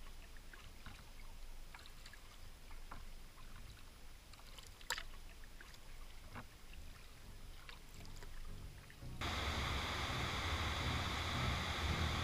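Quiet river ambience from a kayak, with scattered small drips and clicks of water. About nine seconds in it switches suddenly to the loud, steady rush of water pouring over a river weir.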